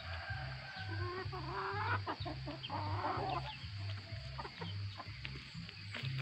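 Chickens clucking as they gather to be fed, the calls busiest in the first three and a half seconds.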